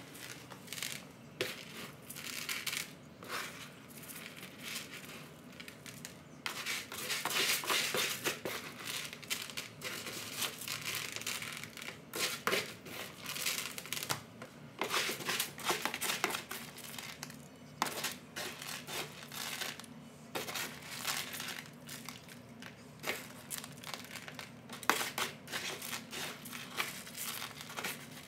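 Plastic scoop digging and sifting through pellet cat litter in a plastic litter box: dry granules rustling, scraping and pouring in irregular bursts.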